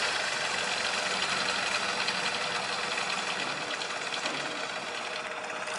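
Diesel car engine fitted to a vỏ lãi long-tail boat, running steadily as the boat backs out in reverse.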